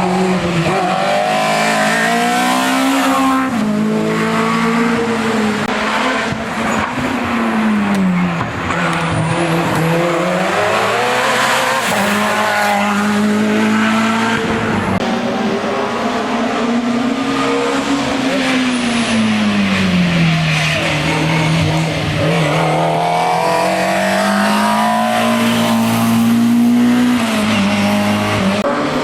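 Hillclimb race car engine at high revs, its pitch climbing and dropping again and again as the car accelerates, shifts and slows for corners.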